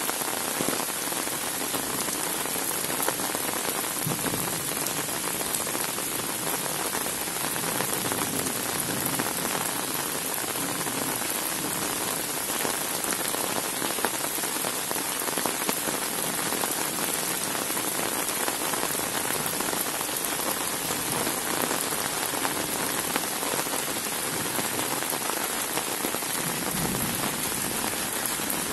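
Steady rain falling on a paved road and the roadside foliage, an even, unbroken hiss.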